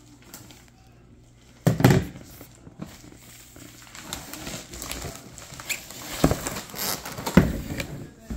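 A large cardboard gift box being handled and opened: a sharp thump about two seconds in, then rustling and scraping of cardboard and packaging, with two more knocks near the end.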